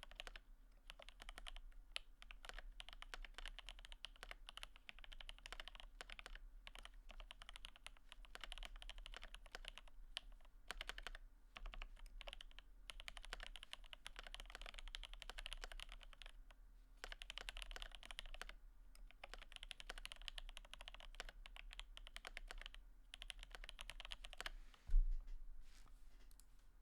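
Typing on a mechanical keyboard with lubed and filmed Alpaca linear switches and GMK keycaps: runs of fast, dense keystrokes broken by short pauses. A single heavy thump near the end is the loudest sound.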